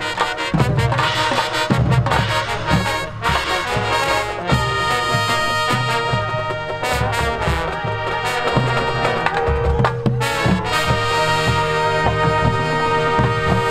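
High school marching band playing: full brass chords over drums and front-ensemble percussion, with sharp percussion hits. About eleven seconds in the brass settles into one long held chord that is cut off at the end.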